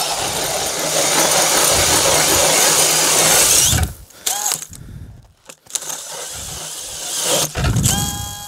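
DeWalt half-inch cordless drill spinning an 8-inch KDrill ice auger through the ice. It runs loud for about four seconds and then stops. Shorter bursts of the drill follow, the last with a steady whine, as the battery gives out.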